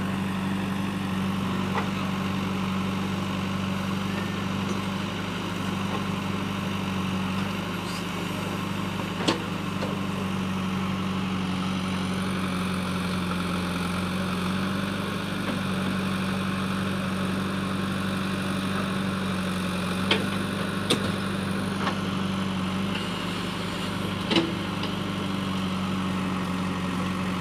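JCB backhoe loader's diesel engine running steadily while the backhoe digs soil and loads it into a tractor trolley. A handful of sharp knocks stand out, two of them close together about twenty seconds in.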